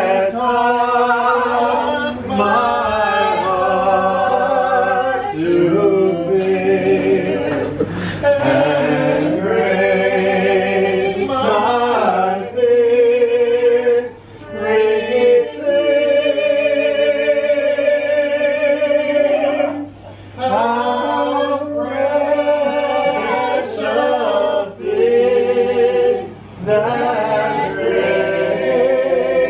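A small group of men and women singing a song together unaccompanied, in phrases of long held notes with brief pauses between them.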